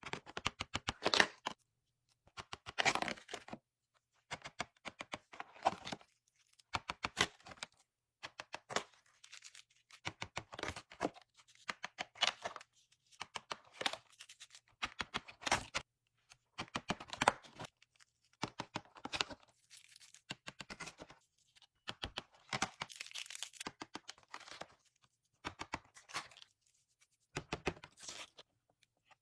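Bursts of crackly clicking and tearing, each a second or two long with short quiet gaps between them, from hands handling a slime advent calendar and its packaging and slime.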